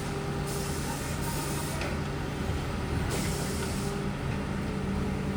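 Heavy diesel engine running steadily, with a hissing noise that comes and goes.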